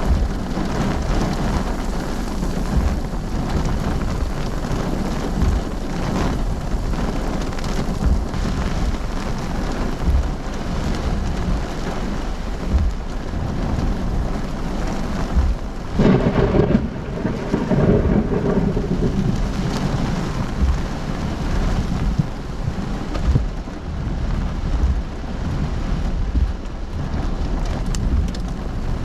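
Heavy rain pouring steadily in a severe thunderstorm, with a loud rumble of thunder a little past halfway through.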